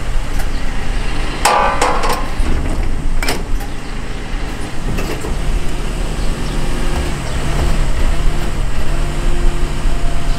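Garbage packer truck idling while its rear loading mechanism is worked: two loud metal clanks with ringing in the first few seconds, then a steady machine hum over the engine as the compactor runs.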